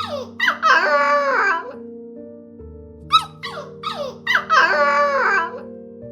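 An animal call repeated over background music: a few quick falling squeaks, then a long wavering cry, the whole pattern coming round about every three seconds.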